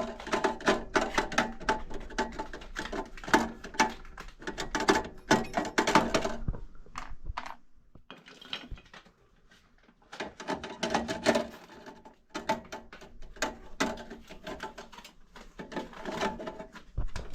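Small metal parts from a furnace conversion kit clinking and rattling against each other as they are handled. The clinks come in two busy stretches with a few quieter seconds between them.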